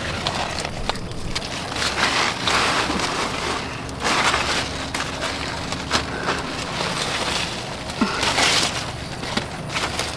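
Rustling and crackling noise in uneven swishes of about a second each, with sharp clicks or snaps now and then.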